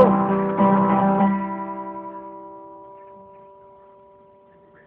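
Acoustic guitar strummed once or twice near the start, the chord then left ringing and dying away slowly over about four seconds until it is barely heard.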